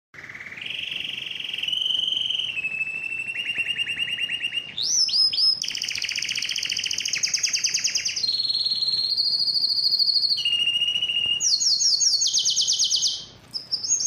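Canary singing a continuous song made of rapid trills, each repeated note held at one pitch for a second or so before the song jumps to a new pitch, with a few quick sweeping notes between trills and a short break near the end.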